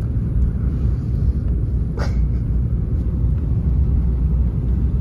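Steady low road and engine rumble inside a moving car's cabin, with one brief sharp sound about two seconds in.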